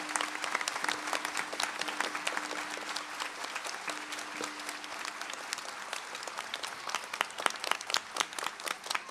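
Audience applauding. The dense clapping thins out to scattered individual claps over the last few seconds.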